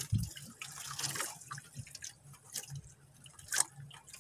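Water lapping and dripping against the side of a small fishing boat: irregular small splashes and knocks, the sharpest about three and a half seconds in.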